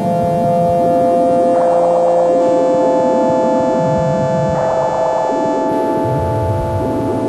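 Synthesizer drone music: several steady held tones, with a hazy swell of noise that comes back about every three seconds over a churning low texture.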